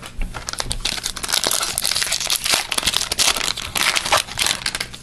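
Foil trading-card pack wrapper crinkling and crackling steadily as it is pulled open by hand.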